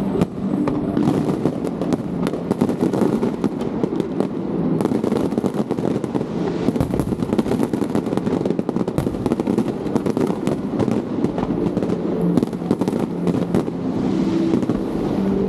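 Fireworks display: a dense, continuous barrage of bangs and crackles from aerial shells going off.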